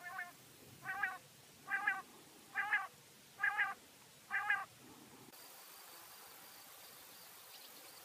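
A quail calling: six short, double-noted calls in a steady series a little under a second apart, the first fainter than the rest.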